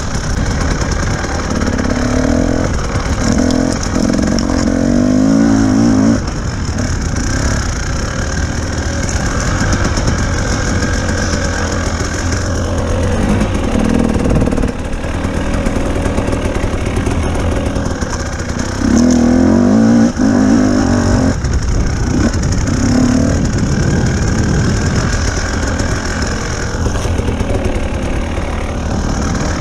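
Enduro motorcycle engine running under way on a dirt trail, its revs rising and falling as the throttle opens and closes, with louder pulls at a few points.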